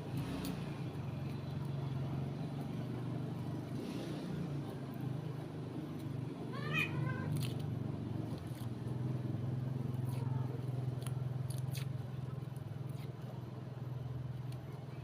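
An animal's call, a single short wavering cry about seven seconds in, over a steady low hum.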